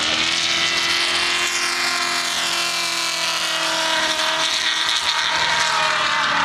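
Off-road race vehicle's engine running hard at high revs as it speeds past and away, its pitch easing slightly downward.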